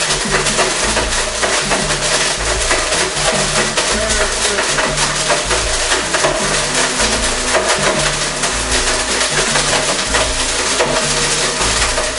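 Background music with a drum beat and a stepping bass line.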